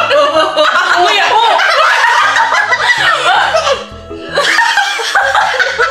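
Several women laughing and talking over each other, with background music and a steady bass line underneath. The voices drop away briefly about four seconds in.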